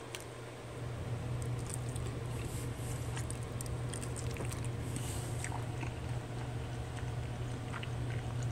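A person chewing a mouthful of chicken dumpling, with small scattered mouth clicks, over a steady low hum.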